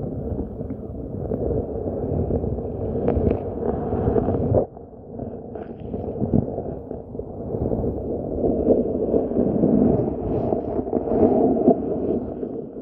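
Muffled rumbling water noise picked up by a camera sitting underwater, with scattered knocks and clicks. It drops away sharply for a moment about four and a half seconds in, then builds again.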